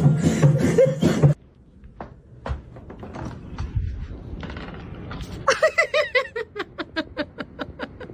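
Background music with a beat cuts off about a second in. After a few soft knocks, a person breaks into quick, rapid laughter near the end, about five laughs a second, falling in pitch.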